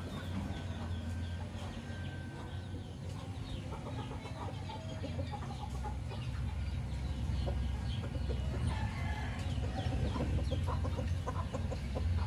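A flock of chickens, roosters among them, clucking as they peck at rice on bare ground, with many short scattered calls and a steady low rumble underneath.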